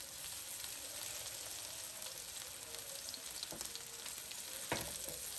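Masala-coated seer fish (king mackerel) slices shallow-frying in hot oil in a nonstick pan: a steady sizzle, with a single light knock near the end.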